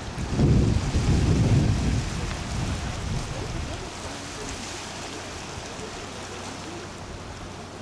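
Wind gusting on the camcorder microphone, a low buffeting rumble over the first few seconds, then a steady hiss of wind and sea surf.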